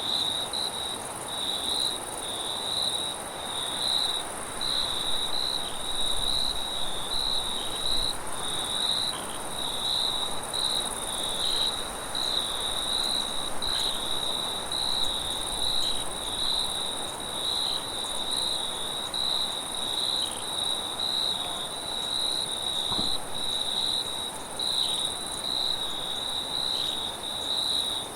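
Crickets chirping in a dense, continuous high-pitched chorus that pulses slightly, with a soft, even rush of wind underneath.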